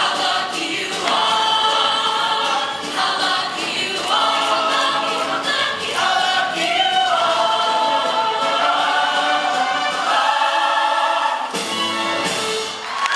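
High school show choir singing in full voice, many voices together carrying a melody with held notes.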